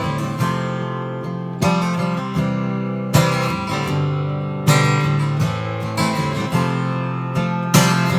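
Acoustic guitar strummed in slow chords, one struck about every second and a half and left to ring, as the introduction to a sung chorus.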